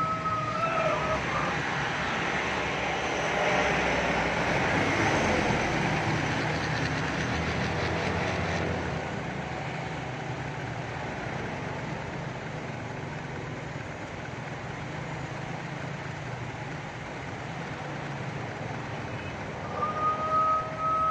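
Road traffic with motorbikes and cars passing and engines running, louder for the first several seconds and then a steadier, quieter rumble of slow traffic. A vehicle horn sounds steadily, ending about a second in and starting again near the end.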